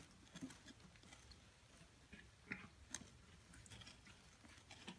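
Near silence with a few faint, scattered clicks and ticks.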